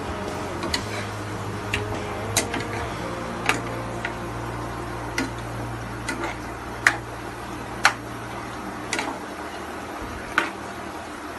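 A metal spoon or spatula knocking against a cooking pan at irregular intervals, about once a second, over a steady low hum.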